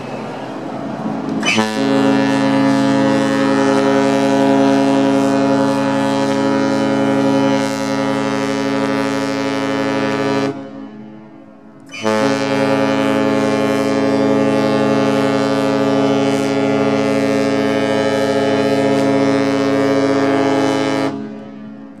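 Cruise ship horn sounding two long, deep blasts of about nine seconds each, with a pause of about a second and a half between them.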